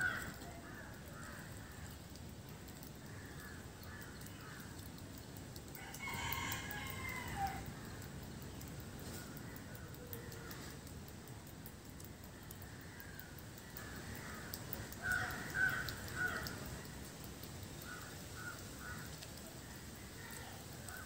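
A rooster crows once, about six seconds in, and chickens give a few short clucks later on, over a low steady background.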